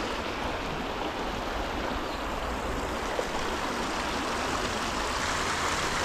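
Shallow creek running over a rocky riffle: a steady, even rush of water over and between stones.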